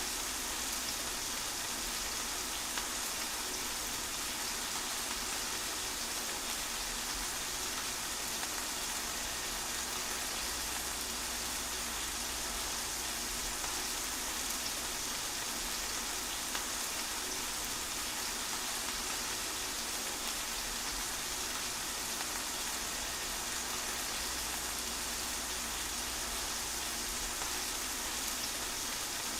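Steady rain falling, a continuous even hiss with a few faint drop ticks.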